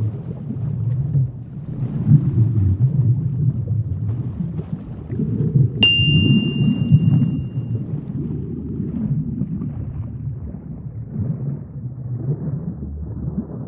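Low, steady underwater ambience rumble with small swells. About six seconds in, a single bright ding rings out for about two seconds.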